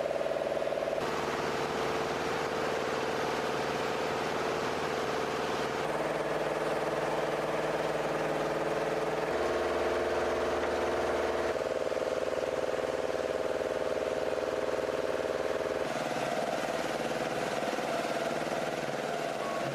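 Steady machinery running with a humming tone and noise. The pitch and mix change abruptly several times, every few seconds.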